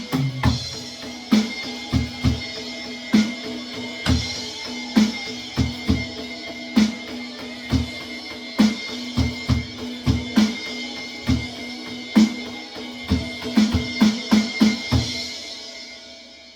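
Electronic drum kit played along with the song's backing track in an instrumental passage, with bass drum and snare hits about once a second. A quicker run of hits comes near the end, then the music fades.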